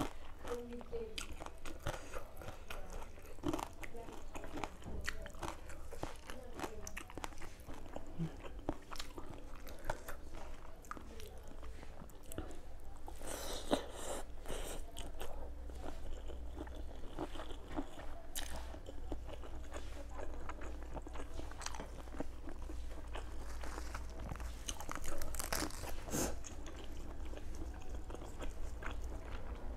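Close-up eating sounds: biting and chewing a spicy Thai rice-noodle salad with shrimp, full of small crunches and wet mouth clicks, over a steady low hum.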